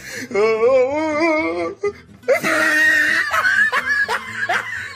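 Overdubbed comic laughter clip: a wavering, warbling laugh, a short break, then a longer burst of laughing over a musical backing.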